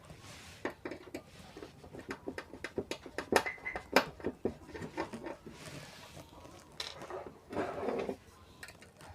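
Screwdriver taking small screws out of a car stereo's metal chassis and circuit board: irregular light clicks and taps, with a few short scraping rasps.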